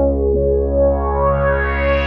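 Roland Juno-106 analog synthesizer playing a held chord over a steady low bass note. The filter sweeps slowly open, so the sound grows brighter toward the end.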